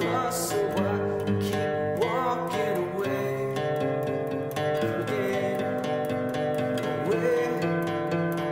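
Song led by acoustic guitar playing sustained plucked notes, several of which slide in pitch.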